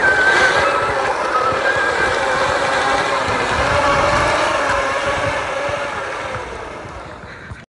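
Rough, steady scraping rumble of a person being dragged seated across a plastic sports-court surface, with a wavering squeal over it, fading and then cutting off abruptly near the end.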